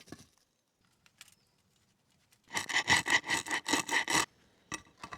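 Quick rasping strokes of a blade across crusty baked bread, about six a second for roughly two seconds, starting halfway in, with a few light ticks before and after.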